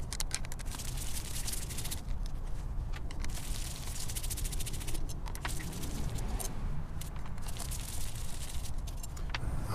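A screwdriver backing loosened screws out of an IAC valve on an aluminium throttle body: faint scraping and scattered light metal clicks over a low steady hum.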